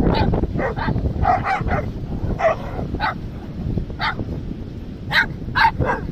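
Dogs barking and yipping in short, separate calls while they play together as a pack, about a dozen calls in all, with several coming close together near the end.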